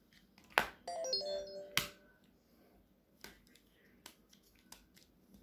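Samsung flip phone handled: a sharp click, then a short electronic chime of a few stepping notes from the phone's speaker, cut by another loud click. Lighter plastic clicks follow as the phones are handled.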